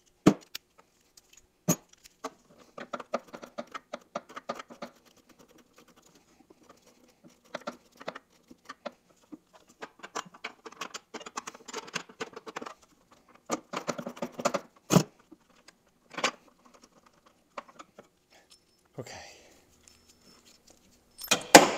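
Socket ratchet wrench clicking in quick runs as a tight bolt is worked loose, with a few single sharp metal clinks of tools between the runs.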